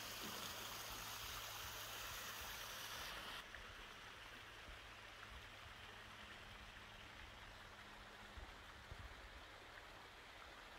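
Small stream rushing and splashing over rocks, a steady hiss of running water that cuts off suddenly about three seconds in, leaving only a faint, quiet outdoor hush.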